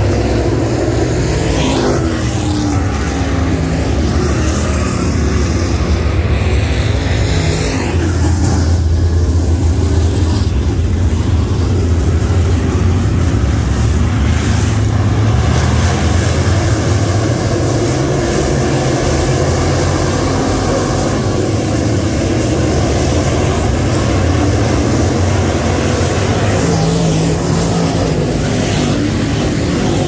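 Dirt late model race cars' V8 engines running hard around the track in a continuous loud drone. A car passes close about six to eight seconds in, its pitch falling.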